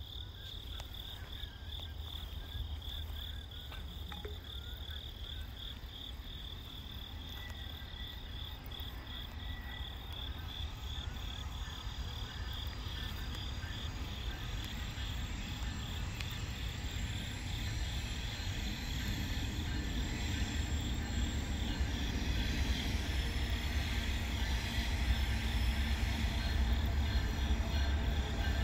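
Insects chirping in a steady, fast-pulsing trill, with a low rumble that grows louder over the second half as a freight train approaches.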